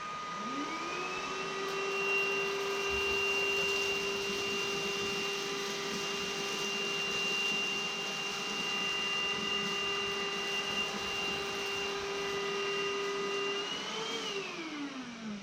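Proscenic P8 cordless stick vacuum running in normal mode. Its motor spins up with a rising whine, runs steadily over a rushing hiss of airflow, then winds down with a falling pitch near the end.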